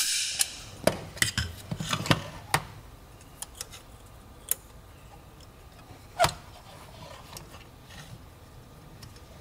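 Small metal clicks and clinks of a steel bracket and spring clip being handled and fitted onto a BMW E36 parking brake handle on a metal workbench: a quick flurry of clicks in the first three seconds, then a few single clicks, the loudest about six seconds in.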